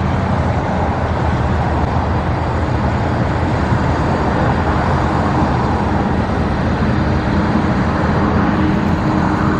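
Steady, continuous noise of road traffic, an even rush of vehicles with a low hum underneath and no single vehicle standing out.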